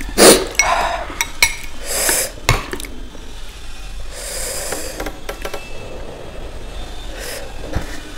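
Sharp sniffs and breaths through the nose, brought on by eating spicy noodles. Between them, a few light clicks come from a fork and spoon against a glass bowl as noodles are lifted.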